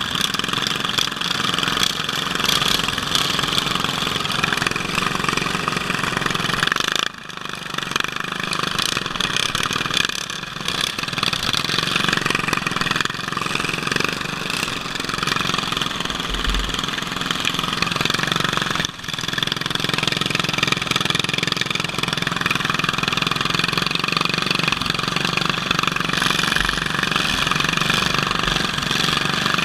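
Case garden tractor's engine running hard while racing on a dirt track, with other mowers' engines around it. The sound dips briefly about 7 and 19 seconds in.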